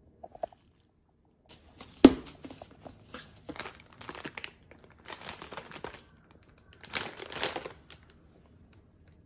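Thin plastic wrapping crinkling in irregular bursts as a multipack of seasoned laver (gim) packets is handled. There is a sharp click about two seconds in, and the loudest crinkling comes near the end.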